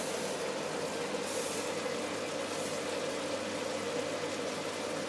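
Chicken adobo sizzling gently in a wok, under a steady hum.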